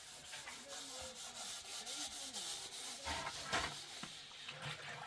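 Rubbing and scraping against the inside of a stainless steel container, with scattered light knocks and a few louder strokes a little past halfway.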